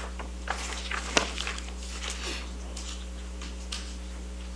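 Room tone in a quiet meeting room: a steady low electrical hum, with faint rustles and small clicks of papers being handled and one sharper click about a second in.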